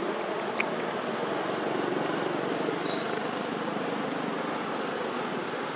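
Steady wash of road traffic noise from vehicles passing on a nearby road, with one sharp click about half a second in.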